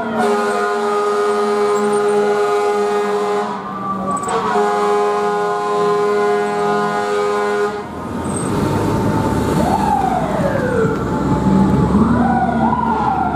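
FDNY fire truck's air horn sounding two long steady blasts with a short break between. Then the truck's engine rumbles louder as it moves off, and its siren sweeps up and winds down twice.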